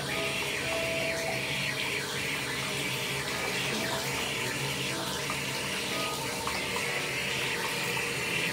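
Steady hiss of running water that holds level throughout.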